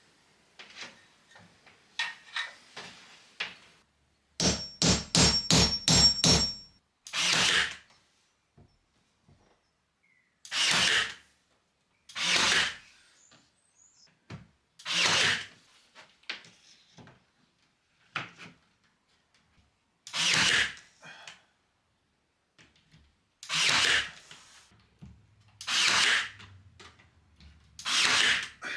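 A power tool run in short bursts of about a second each, stopping and starting repeatedly, as in fixing trim and drawers into a wardrobe. About four seconds in there is a quick series of about seven knocks.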